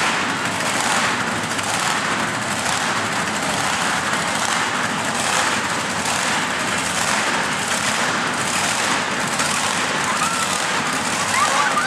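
Monster truck engines running at idle, a loud, steady noise that pulses about once a second.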